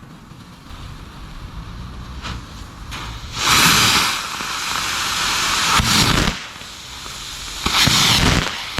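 Small fireworks used as boosters going off with a rushing hiss, in two loud spells: one starting about three and a half seconds in and lasting nearly three seconds, and a shorter one near the end.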